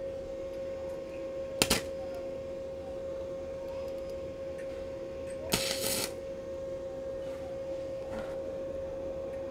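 Welding arc from the torch of an ANDELI MIG-250ME gasless MIG welder, struck in two short crackling bursts: a brief one about one and a half seconds in and a longer one of about half a second near the middle. A steady high hum sits under both.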